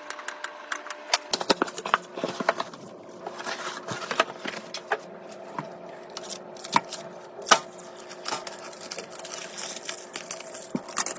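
Hands handling PC parts and a graphics card. There is rapid, even clicking for about the first second, then irregular clicks, taps and plastic rustling, with two sharper clicks around the middle.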